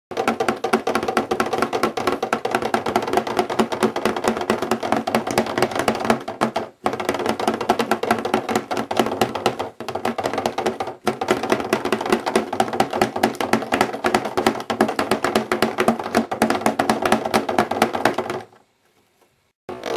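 Fingers drumming rapidly on a paper-sumo board to make the cardboard wrestlers fight: a fast, continuous patter of taps. It breaks off briefly about 7, 10 and 11 seconds in, and stops about a second and a half before the end.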